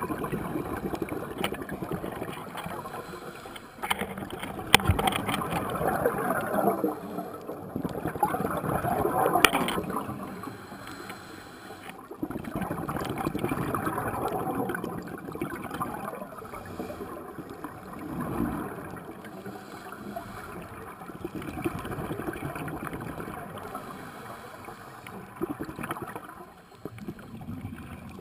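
Scuba diver breathing through a regulator underwater, the exhaled bubbles gurgling in swells every few seconds, with a couple of sharp clicks.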